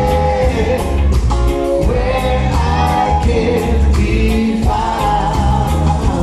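Live reggae band playing with a lead vocal over a heavy bass line and a steady beat, about four drum hits a second, heard from within the audience in a concert hall.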